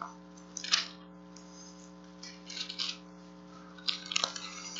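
Soft paper rustles every second or so, pages of a Bible being leafed through at the pulpit microphone to find the verse, over a steady electrical hum, with one light knock about four seconds in.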